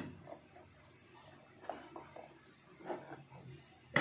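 Peeled garlic cloves dropped by hand into a plastic blender jar: a few faint, scattered taps, then a sharper knock near the end.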